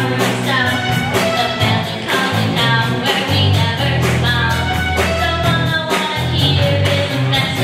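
Young rock band playing live: a girl sings lead over electric guitar, bass guitar, drum kit and keyboard, with a steady bass line and drum beat under the vocal.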